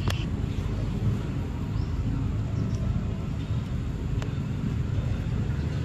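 Outdoor ambience dominated by a steady low rumble, with a sharp click just after the start and another about four seconds in.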